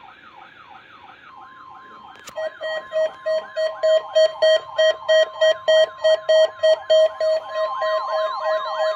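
NOAA Weather Radio warning alarm sounding for the weekly test. A siren-like tone sweeps downward over and over, several times a second. About two seconds in, loud pulsed beeping about three times a second joins it, over a steady warning tone.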